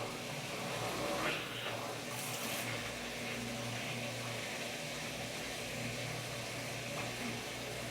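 Washing machine running with a steady hum, turning its load before the spin cycle to throw off the excess water. A brief high hiss comes about two seconds in.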